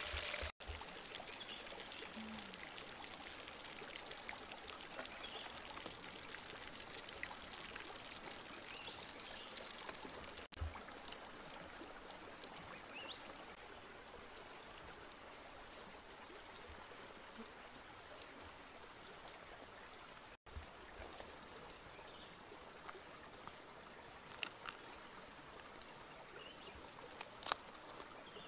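Stream water running over rocks: a steady rushing hiss, with a few light clicks near the end.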